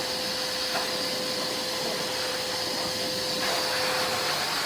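30-litre wet-and-dry vacuum cleaner's motor running: a steady rushing hiss with a high whine over it. A little past three seconds in part of the sound drops away, and a steady hum in it stops near the end.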